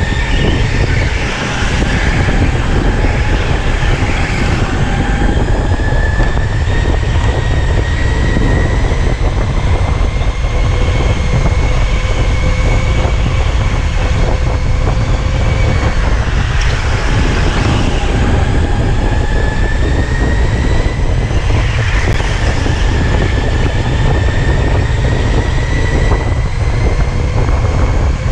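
Electric go-kart motor whine that rises and falls in pitch several times as the kart speeds up down the straights and slows for corners, over a heavy low rumble from the chassis and air.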